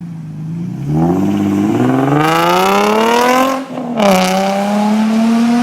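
Nissan 350Z's V6 exhaust under hard acceleration: the pitch climbs steadily for about two and a half seconds, drops briefly at an upshift past the middle, then pulls again from a lower pitch in the next gear.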